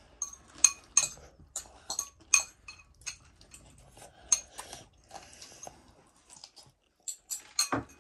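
A child chewing fried chicken noisily with his mouth open: short, wet smacking sounds about twice a second, a quicker, louder run near the end.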